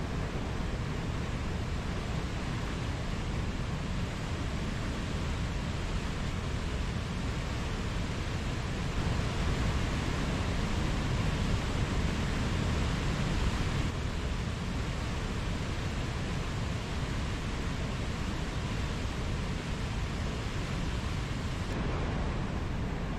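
Mountain stream flowing: a steady rush of water, a little louder between about 9 and 14 seconds in.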